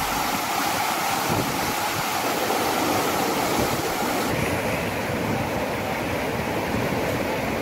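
Muddy floodwater rushing in a steady torrent.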